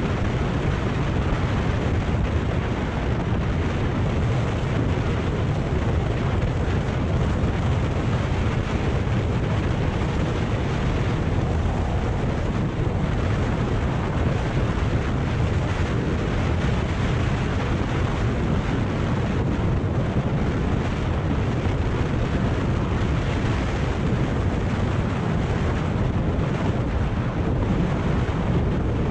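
Steady wind rush on the microphone from riding a Kawasaki Ninja 400 at road speed, with the bike's parallel-twin engine and road noise mixed in underneath. It is heaviest at the low end and keeps an even level throughout.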